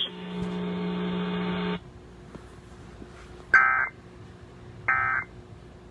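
Emergency Alert System end-of-message code: short identical digital data bursts (SAME AFSK 'NNNN'), two of them about a second and a half apart, marking the end of the alert. Before them a steady buzzing hum for nearly two seconds, which cuts off suddenly.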